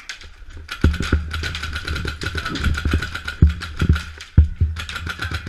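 Airsoft guns firing rapid full-auto bursts: a fast clatter of shots, with heavier thuds mixed in.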